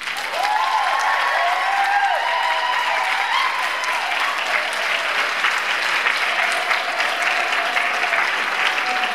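Audience applauding and cheering, with high gliding whoops over the clapping in the first few seconds and one long held cheer near the end.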